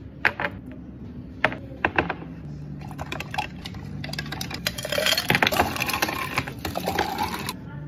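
A few sharp clinks and knocks of tea jars and a long bar spoon being handled and stirred, then ice cubes tipped from a metal ice scoop into the jars, clattering for about two and a half seconds from about five seconds in and stopping abruptly near the end.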